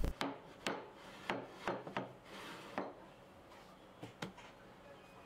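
Wooden vise jaw block handled on a wooden workbench top: several light wood-on-wood knocks and scrapes over the first three seconds, and one more knock about four seconds in.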